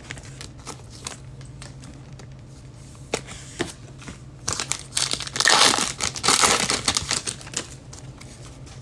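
Plastic trading-card packaging being torn open and crinkled, a busy crackling rip lasting about three seconds in the second half, after a few light taps of handling.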